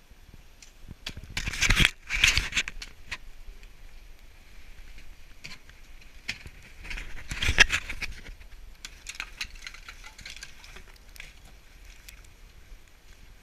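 Ice tools and crampons striking into icicles: crunching and chipping ice with scattered sharp clicks. The loudest spells come about two seconds in and again around seven to eight seconds in.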